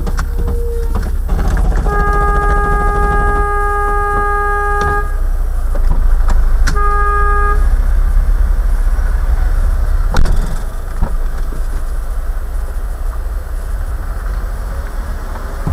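A car horn sounds one long blast of about three seconds, then a short second blast a second and a half later, over the steady low rumble of engine and road noise inside the car. A single sharp knock comes about ten seconds in.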